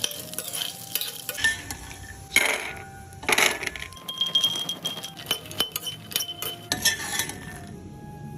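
Metal utensils clinking, knocking and scraping against kitchen bowls and pans during food preparation. There are irregular sharp knocks, the loudest about two and a half seconds in, and short ringing clinks between them.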